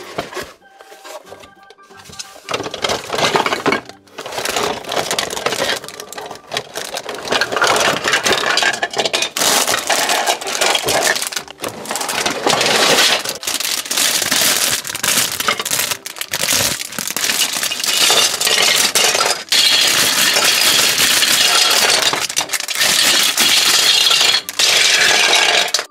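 Handling of a Lego Duplo box and its contents: cardboard rustling, the plastic bags of bricks crinkling and being torn open, and the hard plastic bricks clattering out onto a table. The crinkling and clatter are fuller and more continuous in the second half.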